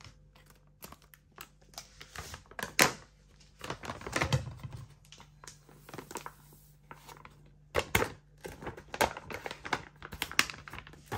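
Plastic bag of rice flour crinkling and rustling as it is handled, opened and tipped into a stainless steel bowl, with scattered sharp clicks and a few louder taps.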